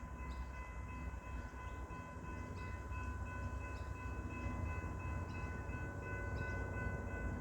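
Level crossing warning bell ringing steadily, with faint ticks about once a second, over a low rumble that slowly grows louder as a train approaches.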